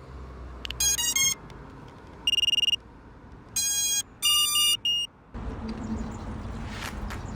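A series of short electronic beeps and tones, one of them a fast pulsing beep near the middle. From about five seconds in, a steady rushing noise with a low hum takes over.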